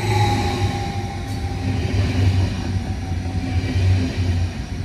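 SBB double-deck S-Bahn train running past close by. Its wheels and bogies give a loud, pulsing rumble, with a faint whine that sinks slightly in pitch over the first few seconds.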